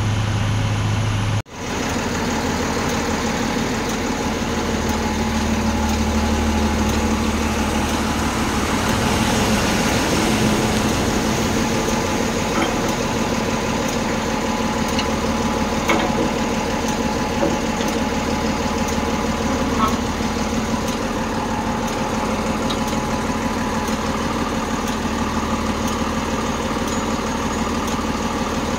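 Heavy diesel engines running steadily while a Kalmar reach stacker handles a container for loading onto the truck. A few light knocks come about halfway through, and the sound breaks off briefly about a second and a half in.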